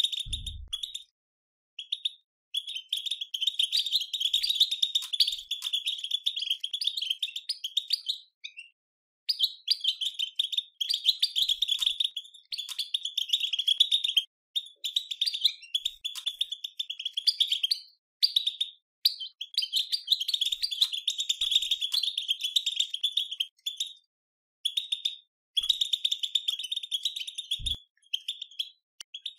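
European goldfinch twittering, the rapid chattering 'batbata' call used to stimulate goldfinches to sing, in bouts of a few seconds with short breaks between them.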